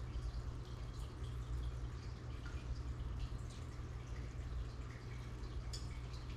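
Aquarium water bubbling and trickling, with many small irregular pops and drips, over a steady low hum from the tank's pump or filter.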